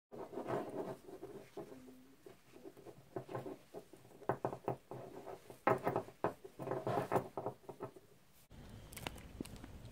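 Steel wool and thin steel wire being handled and twisted together on a wooden tabletop: irregular rustling, scratching and small clicks that come in bursts. Near the end it cuts abruptly to a steadier outdoor background with a few sharp ticks.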